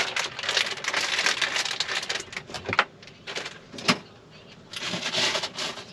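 Plastic food packaging crinkling and rustling as it is handled, with a couple of sharper clicks about three and four seconds in.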